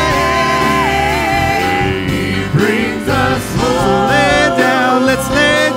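Live church worship band playing a slow worship song with singers: a long held note near the start, then the voices come back in about four seconds in.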